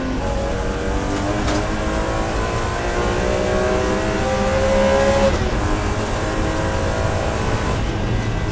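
BMW E46 M3 race car's S54 3.2-litre straight-six pulling hard under full throttle, its pitch climbing steadily in third gear. About five seconds in the revs drop sharply on the upshift to fourth, then climb again. Heard from inside the cockpit.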